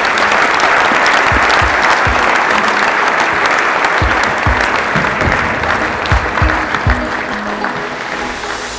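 Audience applauding, with music playing underneath; the clapping slowly thins out toward the end.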